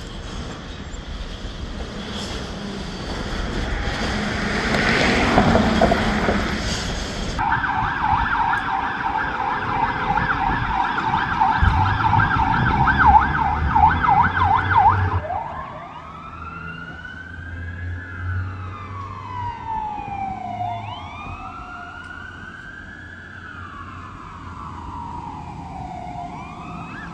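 Emergency vehicle siren: a steady rushing noise gives way, about seven seconds in, to a fast warbling yelp, which switches about halfway through to a slow rising-and-falling wail.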